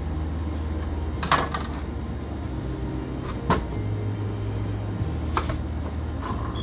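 A knife knocking on a cutting board three times, a couple of seconds apart, as an onion is cut, over a steady low hum.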